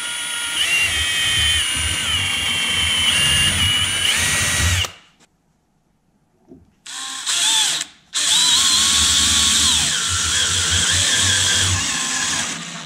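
Cordless drill boring a pilot hole into a small softwood block: a steady motor whine for about five seconds. After a pause and a short burst, the drill runs again for about four seconds driving a wood screw into the block, its pitch dipping partway through.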